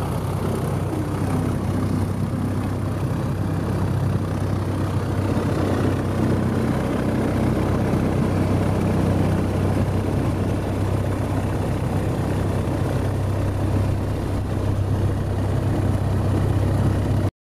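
Light aircraft engine and propeller running steadily at low power while taxiing, heard from inside the cockpit as a continuous low drone. It cuts off suddenly near the end.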